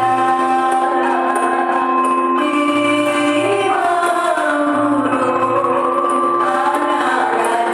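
Malay joget gamelan music with a sung melody in long, gliding held notes over the ensemble.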